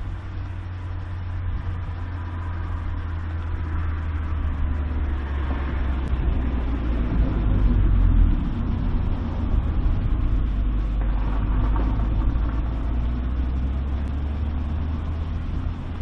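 Low, steady rumble of motor-vehicle traffic with an engine-like hum, swelling to its loudest about halfway through and again later on.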